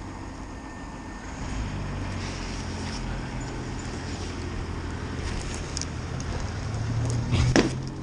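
Truck-mounted telescopic crane's engine running, stepping up in level about a second and a half in and again near the end. A few sharp clanks of steel rigging chain near the end.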